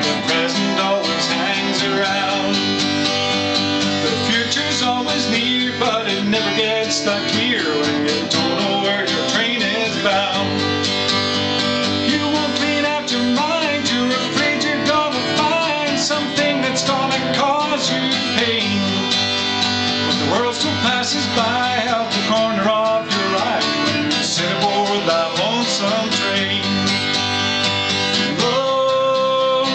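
Acoustic guitar strummed steadily through an instrumental passage of a song.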